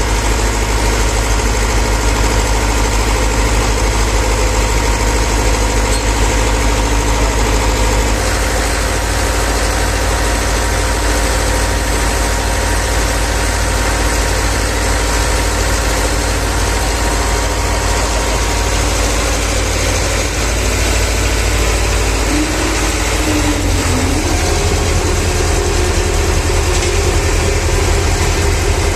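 Heavy diesel truck engine on a concrete job, running steadily near idle; its low note changes about eight seconds in and again near the end.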